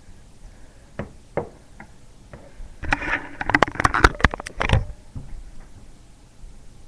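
Butterfly knife being handled and flipped, its handles clacking: a few single clicks, then a quick flurry of sharp clacks about halfway through.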